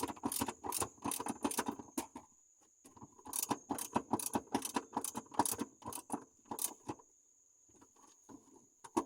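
Quick runs of clicks, knocks and rattles from a car's gear shifter and its cables being handled and pressed into place, stopping briefly a little after two seconds and going quiet near the end. A faint steady high-pitched tone runs underneath.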